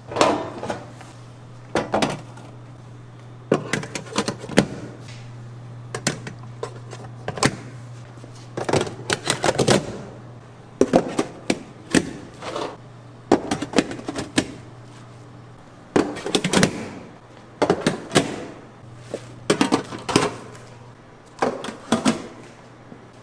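Tableware clattering: irregular clinks and knocks of dishes and utensils coming in small clusters, over a steady low hum.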